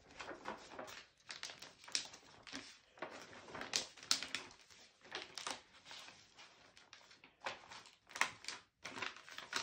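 A large sheet of paper, taped together from nine sheets, rustling and crackling as it is folded into a paper airplane and its creases are pressed flat by hand. It comes as an irregular run of rustles and sharper crinkles.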